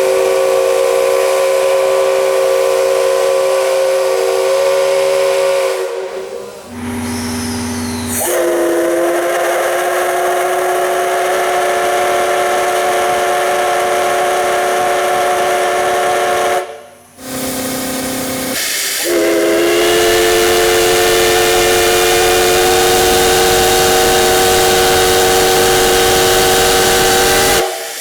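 Japanese steam locomotive whistle: three long, loud blasts, each of several steady tones sounding together over a hiss of steam. Each blast cuts off abruptly, with short bursts of other sound between them.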